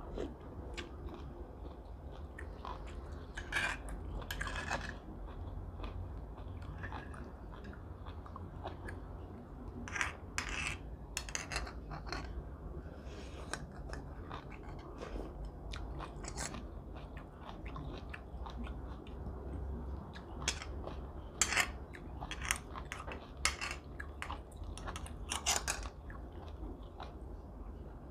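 Close-up chewing and eating sounds of a person eating steamed scallops with vermicelli, picked up by a lapel microphone, with scattered short clicks of a spoon against a scallop shell.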